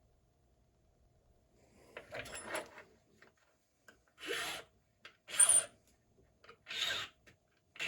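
Hand file scraping across a key blank in slow, separate strokes, about five of them starting about two seconds in. It is filing down the spots where the lock's pins marked the blank, the step of impressioning a key.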